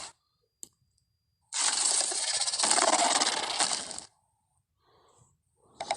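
Carnotaurus creature sound effect: one harsh, noisy growl of about two and a half seconds that starts about a second and a half in and stops abruptly. Another call begins right at the end.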